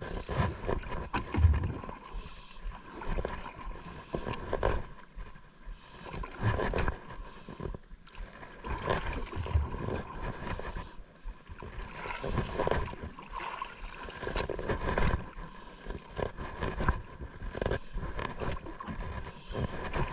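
Gusty wind buffeting the microphone and water sloshing against a small boat, while a conventional jigging reel is cranked steadily, winding line in.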